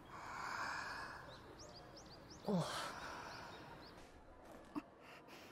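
Faint background ambience: a soft rushing noise swells and fades while birds chirp a few times. A short falling sound about two and a half seconds in is the loudest moment, and two small clicks come near the end.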